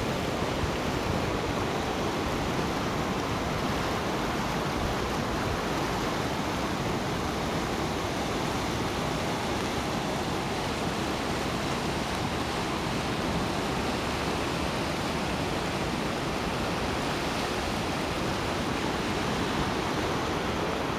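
Guadiana river in heavy flood rushing steadily past the bridge piers, an even, unbroken rush of water with no lulls.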